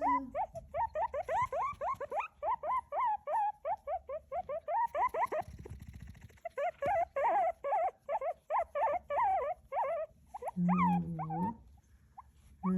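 A small pet squealing: a rapid run of short, high-pitched rising-and-falling squeals, about four a second, with a short pause about halfway through. Near the end comes one lower, longer whine.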